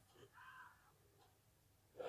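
Near silence: room tone, with a faint short sound about half a second in.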